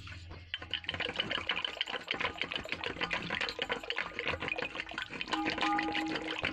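Wooden whisk beating thick curd in a steel pot: fast wet slapping and sloshing strokes, starting about half a second in, as the curd is whisked smooth for kadhi.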